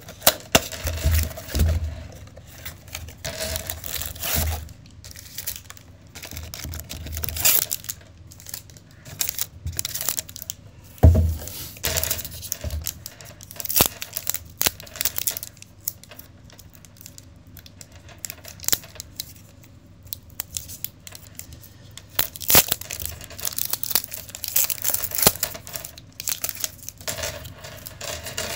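Foil trading-card packs and their cardboard blaster box being handled: irregular crinkling and rustling with sharp tearing rips, loudest about 11 and 22 seconds in.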